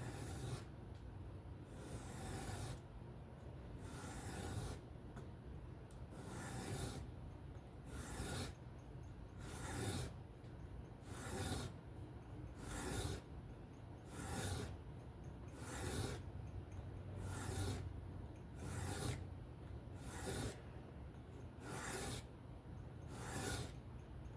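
Steel knife blade stroked freehand across a 1200-grit sharpening stone: even, repeated back-and-forth scraping strokes, a louder one about every one and a half seconds, as the last burr is knocked off the edge.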